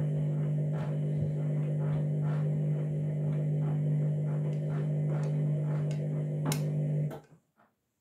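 Candy front-loading washing machine running its start-up: the drum motor's steady low hum with faint regular ticks about two to three a second. The motor stops abruptly about seven seconds in.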